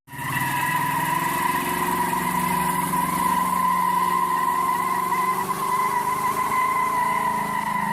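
A vehicle engine running at a steady speed, with a steady high-pitched whine over it. The sound starts suddenly at a hard cut.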